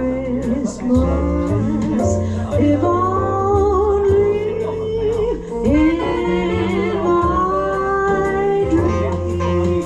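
Music: a woman singing long held notes with a wavering pitch over a Band-in-a-Box backing track with bass, guitar and a light steady beat.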